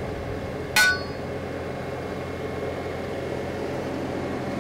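A single sledgehammer blow on a steel seismic strike plate, a sharp metallic clang with a short ring, about a second in. It is the seismic source strike that sends a shear wave down to the cone for a seismic CPT reading. A steady machine hum runs underneath.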